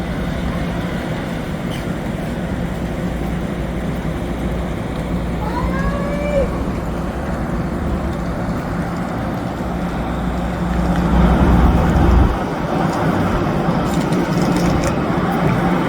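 Diesel passenger-train locomotive idling with a steady low rumble; the deepest part of the rumble drops away suddenly about twelve seconds in.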